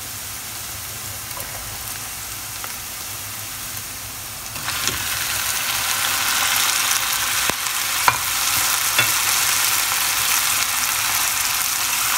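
Diced onions and green peppers sizzling in oil in a frying pan over high heat. About four and a half seconds in, the sizzle turns suddenly louder and brighter as chopped tomatoes go into the hot pan, with a few sharp clicks a little later.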